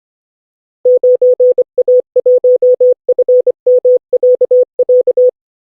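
Morse code: a single steady tone switched on and off in short and long beeps, dots and dashes in groups, stopping a little before the end.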